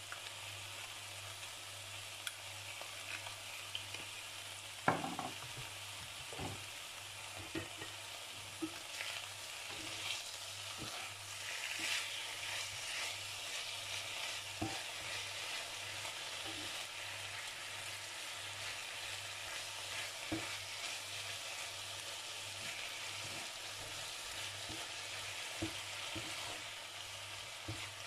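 Chicken strips sizzling in a hot steel frying pan while a wooden spatula stirs them, knocking against the pan now and then, with one sharp knock about five seconds in. The sizzle grows louder about ten seconds in.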